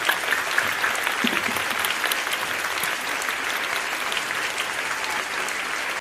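An audience of schoolchildren applauding: many hands clapping steadily.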